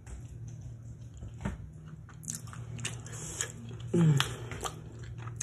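Close-up eating sounds: biting into and chewing a fried egg roll dipped in egusi soup, with sharp crackles from the fried wrapper and wet mouth sounds. A short hummed "mm" comes about four seconds in.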